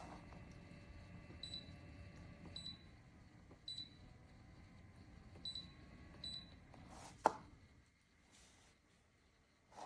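Short, high electronic beeps, five of them at uneven intervals, over a faint low steady hum. A sharp click comes about seven seconds in, and the hum drops away soon after.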